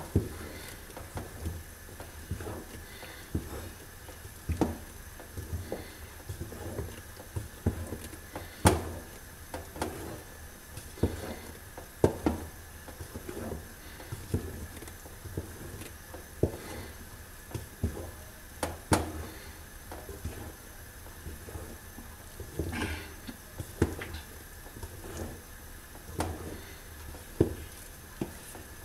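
Wooden spoon stirring a thick sesame paste in a metal pot, scraping through it and knocking against the pot's sides in an uneven rhythm, with a few sharper knocks.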